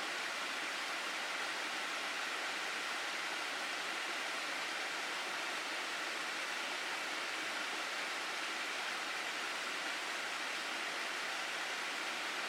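Water of a mountain gorge stream rushing steadily: a constant, even hiss with no breaks.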